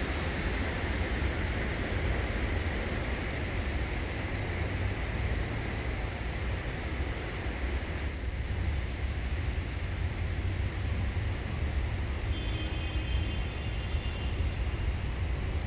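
Steady noise of heavy road traffic: a continuous low rumble with a hiss above it.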